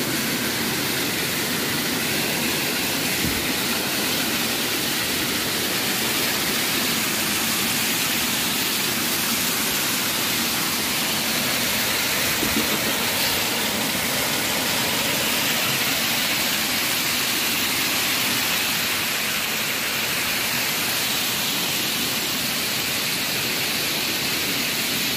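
Water pouring over a concrete weir and crashing into a foaming pool below, a steady rushing roar.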